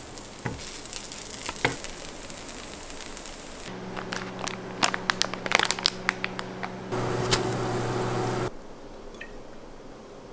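Vegan bacon strips sizzling and crackling in a frying pan as tongs turn them. After a cut, a plastic instant-noodle packet is crinkled and handled, with many sharp crackles and a louder rustling stretch near the end.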